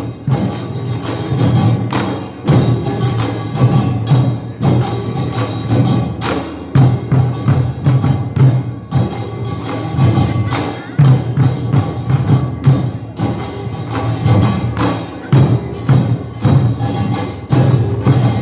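Korean nongak (pungmul) percussion band playing: a fast, dense rhythm of bright metal strikes from small hand gongs (kkwaenggwari) over drums.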